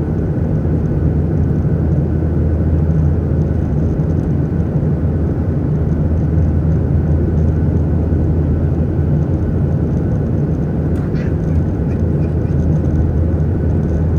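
Steady, loud rumble of jet engines and air noise heard inside an airliner cabin in flight.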